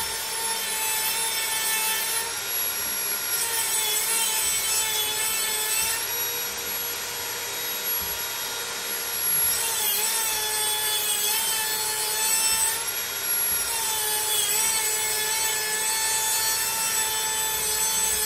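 Small hand-held rotary grinder with a cut-off disc cutting through a motorcycle engine's steel cam chain. A steady high whine sags in pitch and turns harsh and hissing each time the disc bites into the chain, in about four cuts of a few seconds each, with the tool running free in the short gaps between.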